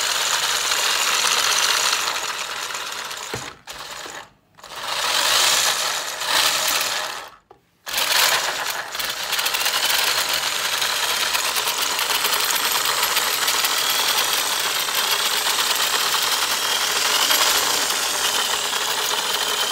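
18-volt cordless drill motor spinning the 3D printed RC car's plastic gear drivetrain and wheels with no load. It makes a loud mechanical whirring and rattling with a faint whine that rises and falls with the throttle. It cuts out briefly about three and a half seconds in and again about seven and a half seconds in, then runs on steadily. The builder calls the printed parts a little wobbly because they are hard to print accurately.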